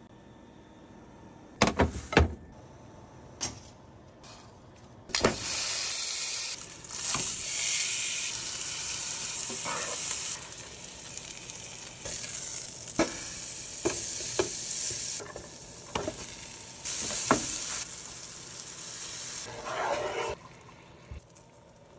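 Ribeye steak searing in hot oil in a frying pan, sizzling in stretches that start loud about five seconds in, with sharp clicks and knocks of tongs and utensils against the pan. Near the end a spoon stirs and scrapes through mushrooms in a cream sauce.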